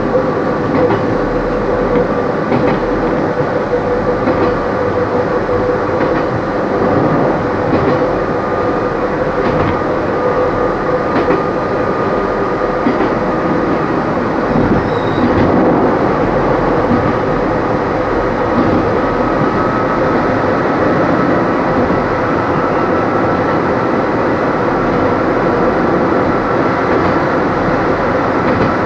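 Kobe Electric Railway 3000-series electric train running, heard from the driver's cab: steady running noise with a level whine from the motors and gearing and an occasional click of the wheels over rail joints.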